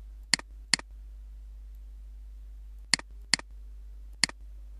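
Computer mouse clicking: five short sharp clicks, two quick pairs and then a single one, over a steady low hum.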